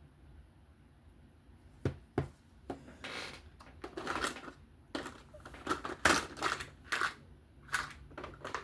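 Small parts being handled and rummaged through while he searches for a missing screw: irregular sharp clicks, light clatter and short rustling, starting about two seconds in.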